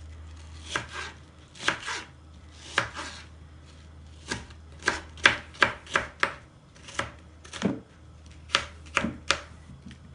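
Kitchen knife chopping onion on a plastic cutting board: about fourteen sharp, irregular knife strikes on the board, coming faster in the middle.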